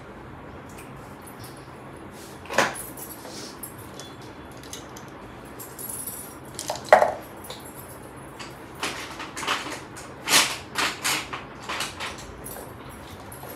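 Small plastic makeup items being handled, put down and picked up: a click about two and a half seconds in, a louder knock near seven seconds, then a quick run of clicks and taps in the second half.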